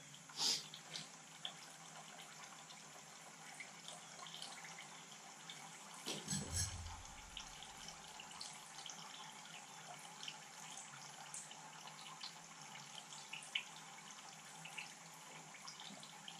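Faint scattered clicks and light taps from handling a partly dismantled forklift hydraulic lift cylinder and its parts, with one dull knock about six and a half seconds in, over a steady low hiss.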